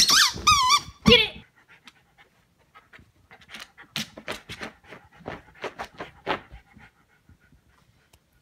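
A rubber squeaky chicken toy squawks loudly with a wavering pitch for about a second. Then a miniature schnauzer sniffs and paws at the rug hiding it, in quick irregular scratchy strokes from about three seconds in.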